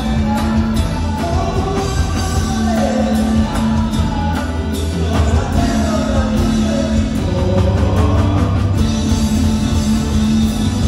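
Live rock band playing loudly through a PA system: electric guitars, bass and drums with sung vocals over them.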